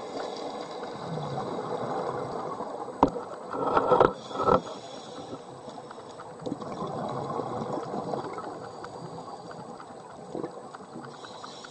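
Scuba regulator breathing heard underwater through a camera housing: a loud gush of exhaled bubbles about four seconds in, after a sharp click, over a steady watery hiss and rumble.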